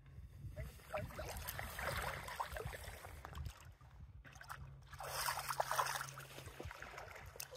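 River water sloshing and splashing in the shallows as a hooked silver coho salmon is brought in, brightest about five seconds in, over a low steady hum.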